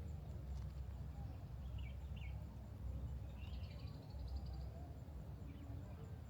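Forest birds calling: a couple of short chirps about two seconds in, then a quick trill of rapid notes around three and a half seconds, over a steady low rumble.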